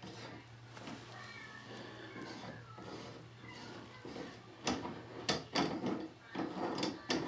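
Retaining nut being turned off a Delta MultiChoice tub and shower valve body, with a thin wavering squeak for the first few seconds, then a run of metallic clicks and knocks from about four and a half seconds.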